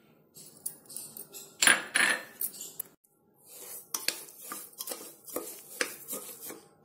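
Steel spoon scraping and clinking against a pressure cooker pot while sugar is stirred into soft cooked rice and dal. The loudest clatter comes about two seconds in, followed later by a run of quick sharp clinks.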